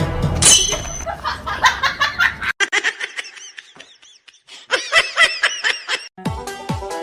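Laughter in short, rapid, high-pitched bursts, with a gap around four seconds in. Music with a steady beat starts about six seconds in.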